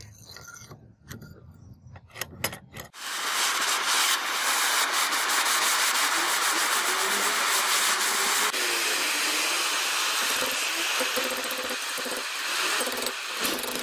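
A few light metal clicks and taps, then about three seconds in a handheld gas torch starts a loud, steady hiss as its flame heats the steel piece in the vise.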